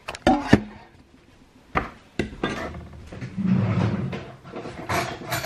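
A few sharp clicks and knocks, then a kitchen drawer being opened and rummaged through, as if searching for a tool.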